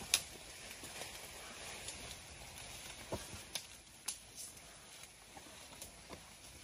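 A herd of wild Asian elephants moving through undergrowth: faint, scattered snaps and rustles, with one sharper crack just after the start.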